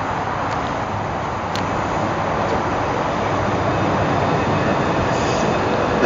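Southern Class 377 Electrostar electric multiple unit running in along the platform, a steady rumble of wheels on rail that slowly grows louder as the carriages pass close by. Faint whining tones join in near the end.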